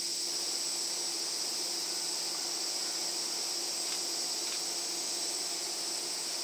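Steady, high-pitched chorus of summer cicadas.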